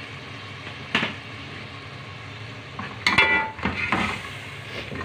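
Spice masala and curd sizzling as they fry in a steel pot, stirred with a steel spoon that scrapes and clinks against the pot. There is a sharp clink about a second in and a louder spell of spoon-on-pot scraping about three seconds in.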